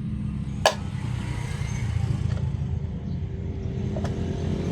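An engine running steadily with a low rumble, and a single sharp metallic click about two-thirds of a second in.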